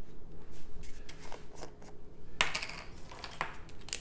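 Scattered light clicks and clatters of a set of plastic measuring spoons on a ring and a spice jar being handled, the loudest a brief rattle a little past halfway.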